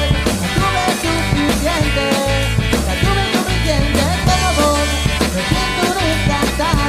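Rock band music: a steady bass line and drum beat under a melody that slides between notes.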